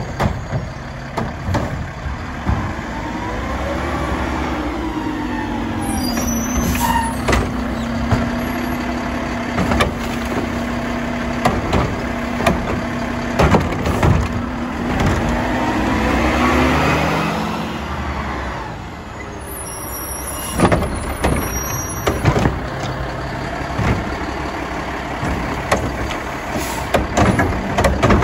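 Mack LEU garbage truck's diesel engine running as it pulls up and works its Curotto-Can arm, with a steady whine that rises in pitch, holds for about fourteen seconds and falls away. In the second half, a series of sharp clanks and bangs as the arm grabs a plastic trash cart and tips it into the can.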